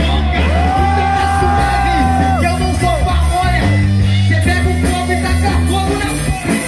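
Live rock band playing: electric guitar, bass guitar and drums, with one long held note in the first couple of seconds.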